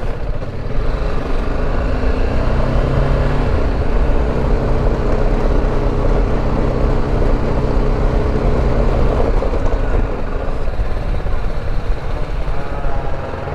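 BMW G310 GS single-cylinder engine running as the motorcycle rides a rough dirt road, over a constant rumble of wind and road noise. Its note holds steady through the middle and drops back after about nine seconds.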